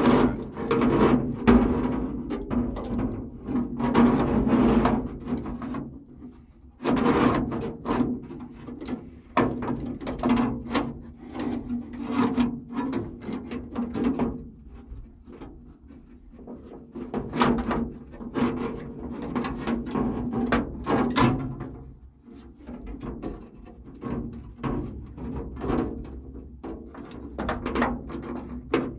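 A replacement door latch and hands working inside an M35A2 truck's steel door cavity: irregular metallic clunks, knocks and scrapes as the latch is maneuvered into place behind the window-regulator track.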